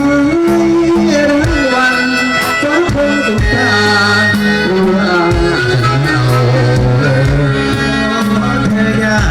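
Live Thai luk thung band music: a melodic lead line over steady bass notes and drums, between sung lines of a slow love song.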